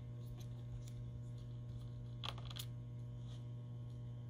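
Steady low hum with a few faint clicks of a small screwdriver working screws out of a laptop's motherboard, the clearest two a little over two seconds in.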